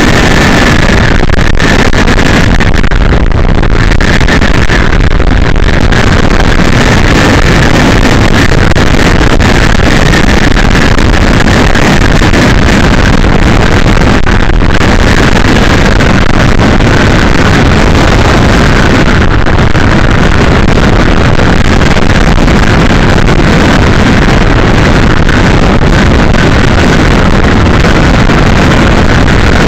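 Steady, loud road and wind noise of a car driving at highway speed, picked up by a dashcam. A faint high tone runs through it.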